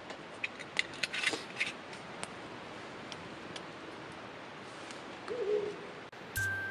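Clinks and knocks of a glass and a whisky bottle being handled and set down on a wooden camp table, several in quick succession over the first two seconds. About five seconds in comes one short, low, wavering tone.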